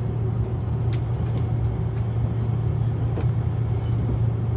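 Steady low rumbling drone with no change in level.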